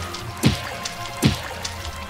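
Cartoon sound effects of quick drip-like plops, each sliding steeply down in pitch, about three times, over steady background music.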